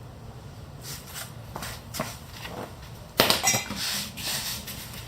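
Handling noise from a car jack stand being pulled out from under the raised car: several scattered knocks, then a louder metallic clank a little after three seconds in.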